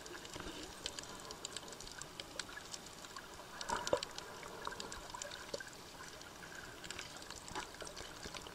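Underwater sound picked up by a submerged camera: a faint hiss of water with many small scattered clicks and crackles, and a brief louder swish of moving water about four seconds in.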